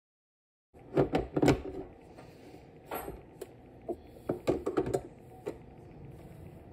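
Metal clacks and knocks of an espresso machine's portafilter being handled and locked into the group head, in two clusters of sharp knocks about a second in and again around four to five seconds in, with a single clack in between.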